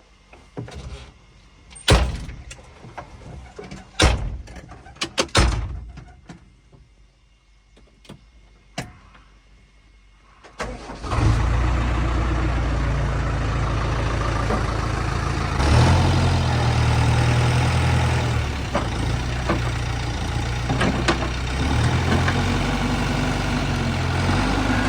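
A few sharp knocks. About ten seconds in, a diesel engine of the backhoe or a tractor starts and runs steadily, its note changing twice.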